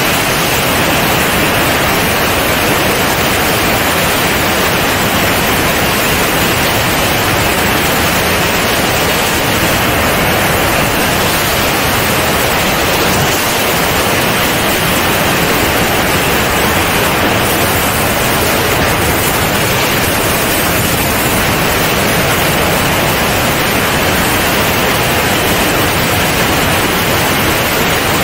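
Loud, steady rush of wind over a camera mounted outside on the wing of a C42 ultralight in flight. It is an even hiss with no distinct engine note standing out.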